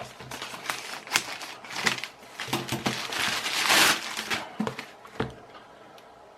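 Packaging crinkling and rustling as the camera microphone's package is handled, with many small sharp crackles and a longer rustle in the middle, going quiet near the end.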